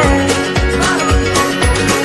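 Upbeat pop song with a steady drum beat and guitar, between sung lines.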